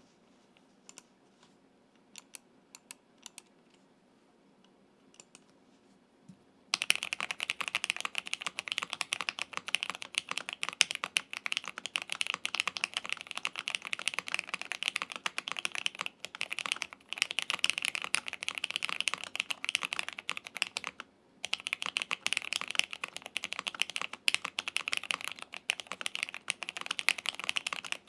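Typing on a QK65 mechanical keyboard with L&F Cotton Candy tactile switches, an aluminium half plate, case and PE foam, and GMK Hammerhead Dark keycaps. A few scattered clicks come first, then steady, fast keystrokes begin about seven seconds in, with a short break about three quarters of the way through.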